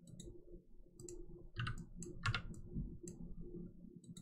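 Computer mouse clicking as pattern points are selected: scattered quiet clicks, with two louder ones about a second and a half and two and a quarter seconds in, over a faint steady hum.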